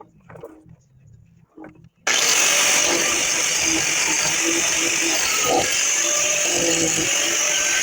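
A few faint handling sounds, then about two seconds in an angle grinder starts up suddenly and grinds steel with a steady, loud, high-pitched whine.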